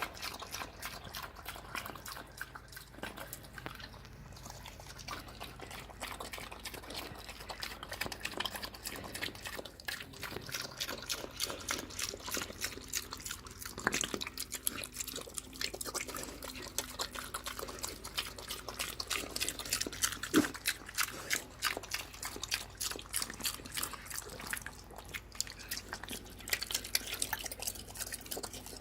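Pig eating wet slop: a continuous run of wet chomping, smacking and slurping.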